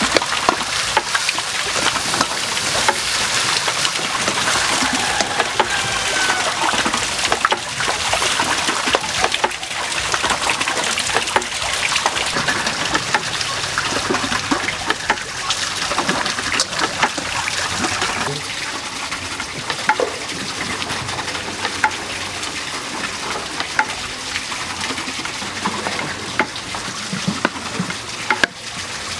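Food sizzling in a non-stick wok over a wood fire while a wooden spatula stirs it, with a steady hiss and frequent small scrapes and taps of the spatula against the pan.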